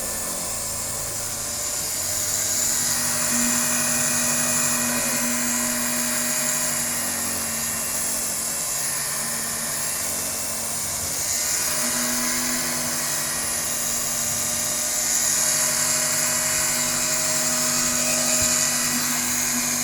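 Small electric Octa fabric-cutting machine running with a steady high motor whine while cutting through a stack of t-shirt knit fabric. It grows louder about two seconds in, eases briefly around the middle, then picks up again as the blade works under load.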